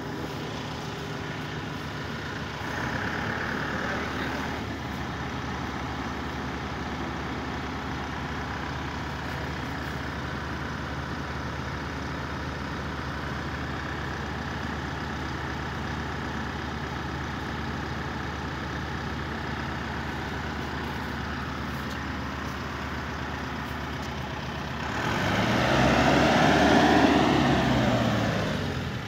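An engine running steadily in the background. Near the end a vehicle passes, louder for about three seconds, its pitch bending as it goes by.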